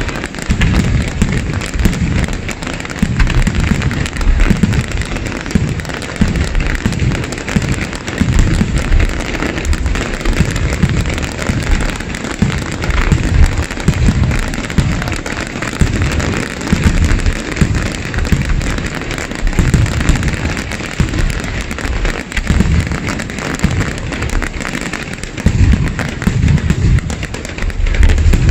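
Fireworks display at full intensity: a dense, continuous barrage of aerial shells launching and bursting, with deep booms following one another without a pause over a steady hiss and crackle.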